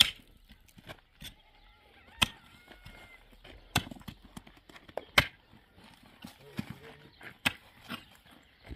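A sledgehammer striking stones on the ground, breaking rock. The heavy blows are sharp and come about every one and a half seconds, five in all, with lighter knocks between them.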